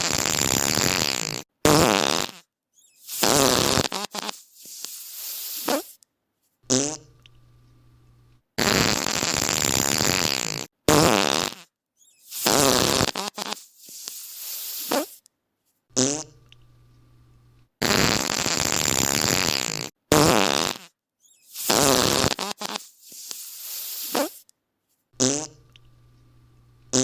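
Fart sound effects: a sequence of farts of different lengths, from a long loud blast of about a second and a half to shorter ones, repeated three times about every nine seconds, with a faint steady hum in the quiet gaps between.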